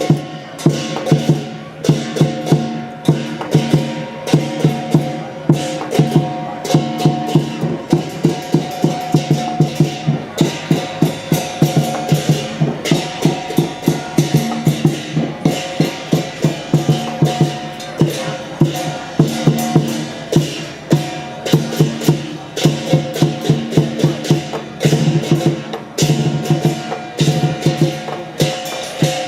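Taiwanese lion dance troupe's percussion band playing: fast, dense drum and cymbal strikes over steady ringing gong tones.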